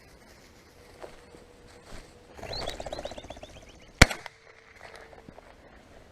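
A partridge flushing, with a quick whirr of wingbeats and rapid cackling calls, followed about a second later by a single loud shotgun shot.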